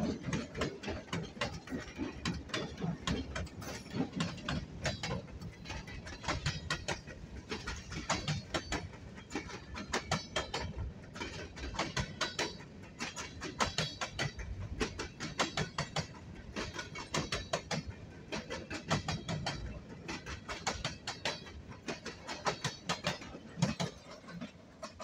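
Freight train cars rolling past close by, their steel wheels clicking and clattering on the rails in a continuous uneven rhythm over a low rumble. The rumble is heaviest in the first couple of seconds as the locomotive goes by, and the clatter gets quieter near the end.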